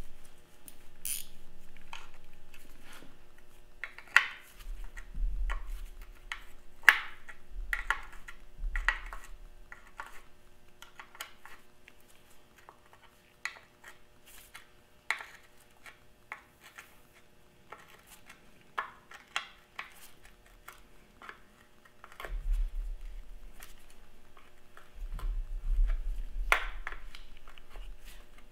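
Scattered metallic clinks and clicks of a hand tool working at the side cover plate of a Farmall Super M's cast-iron engine block, with a few dull bumps in between.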